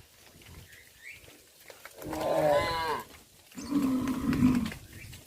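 Cows mooing: two loud moos, the first about two seconds in with a wavering pitch, the second lower and steadier about a second later.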